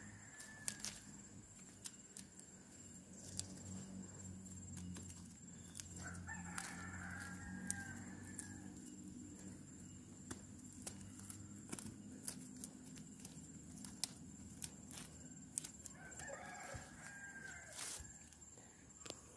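A rooster crowing twice, each crow lasting about two seconds, about six and sixteen seconds in. Scattered sharp clicks run throughout.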